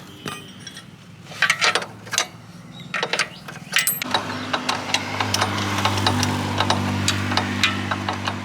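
Metal hand tools clicking and ratcheting during bike wheel work. About four seconds in, a steady low motor hum starts under rapid clicking.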